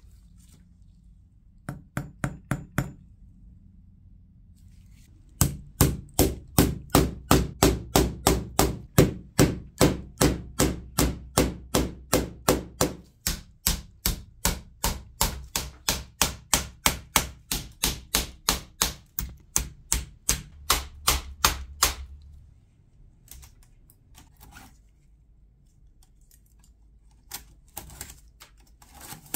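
Hammer striking metal: a short quick burst of taps on an anvil, then a long, even run of sharp blows at about three a second that stops abruptly, followed by a few faint knocks.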